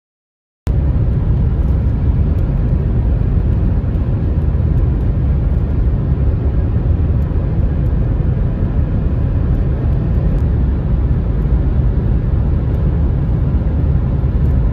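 Steady low rumble of road, tyre and engine noise from a car travelling at highway speed, starting abruptly a moment in.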